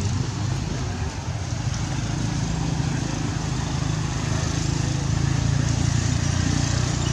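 A motor running steadily with a low hum, under a haze of outdoor background noise.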